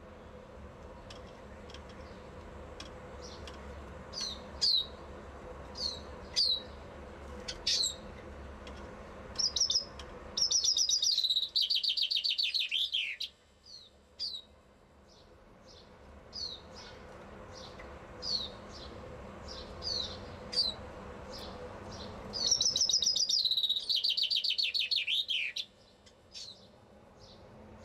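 Common chaffinch singing: two full songs about twelve seconds apart, each a falling trill of about three seconds that ends in a lower flourish. Between them it gives short, sharp, downward-sliding calls, repeated every second or two.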